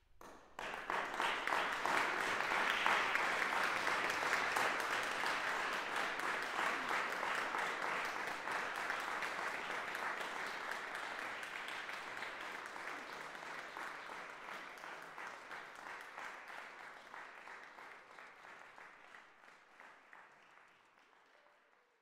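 Audience applauding: the clapping starts suddenly about half a second in, is fullest a few seconds later, then slowly dies away.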